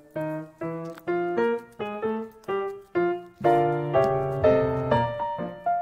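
Background piano music: a melody of evenly spaced notes, each struck and dying away, about two or three a second, with fuller, louder chords joining about three and a half seconds in.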